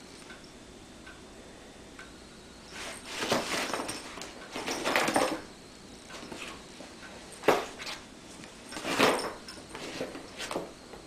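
Stiff paper gift bag rustling and crinkling as a cat scrambles about inside it, in several bursts of about a second each, with one short sharp knock between them.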